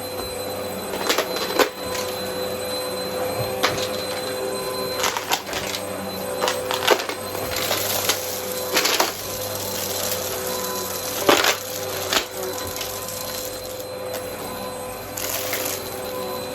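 Vacmaster vacuum cleaner running with a steady whine, broken by frequent sharp clicks and rattles and two brief bursts of higher hiss.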